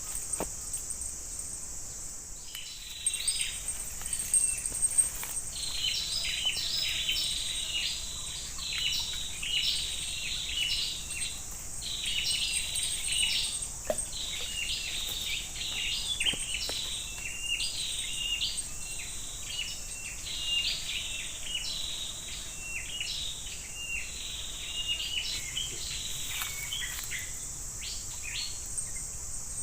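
Birds calling outdoors in a busy run of short, repeated high notes that slide down in pitch, over a steady high-pitched insect drone. The bird calls start a few seconds in and die away near the end, while the insect drone carries on.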